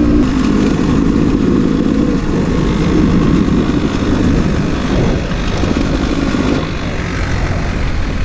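2019 Beta 300 RR Race Edition's two-stroke single-cylinder engine running as the dirt bike is ridden along the trail, the throttle rising and falling unevenly.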